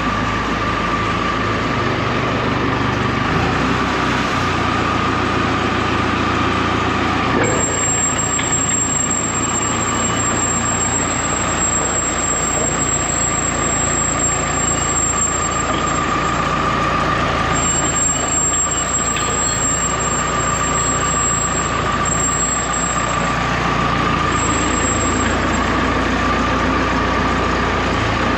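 Dressta TD-8H crawler dozer's diesel engine running steadily, with a steady whine above it.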